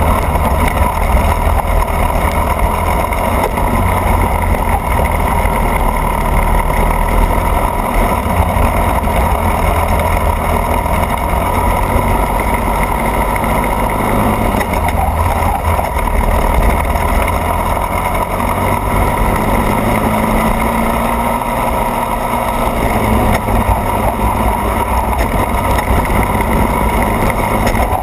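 Racing kart engine running hard at track speed, heard from a camera on the kart itself, mixed with wind and tyre noise; the sound stays dense and steady with small shifts in pitch as the throttle changes.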